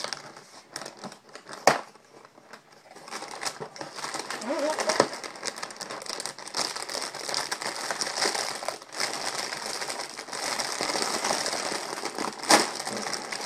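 Plastic cereal liner bag and cardboard box crinkling as they are opened and handled, with a sharp snap about a second and a half in and another near the end.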